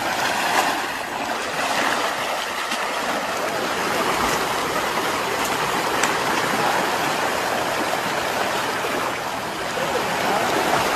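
Steady rushing of a swift, muddy river.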